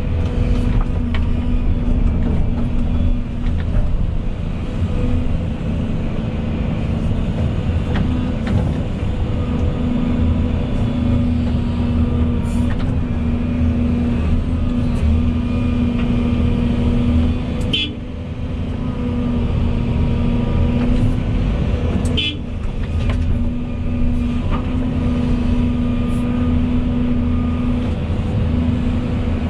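Volvo EC220E excavator's diesel engine running steadily at working revs. It is broken twice by short high squeaks, with the engine sound dipping briefly each time.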